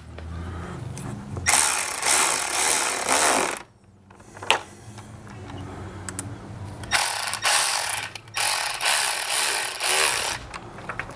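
Ratchet wrench with an 8 mm socket clicking rapidly in three runs of a couple of seconds each, with a single click between, as worm-gear hose clamps are tightened.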